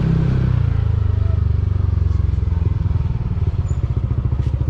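Motorcycle engine idling with an even, low pulsing beat.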